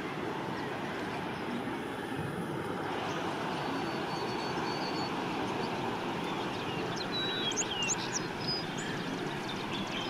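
Birds calling: a thin, steady whistle a few seconds in, then a cluster of short, high chirps and whistles from about seven seconds on, over a steady background noise.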